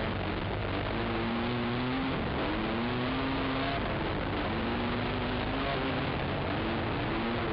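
Racing quad's engine heard from the machine itself, its pitch climbing and dropping back several times as the throttle is worked along a rough trail, over a steady rushing noise.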